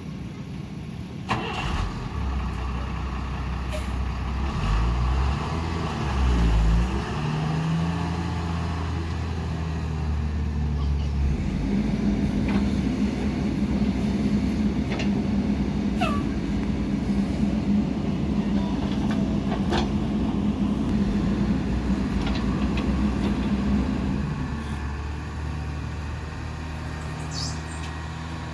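Heavy diesel engine running, its pitch dipping and rising a few times a few seconds in, then held at higher revs for about twelve seconds before dropping back to a lower run near the end. A short sharp sound comes about a second in.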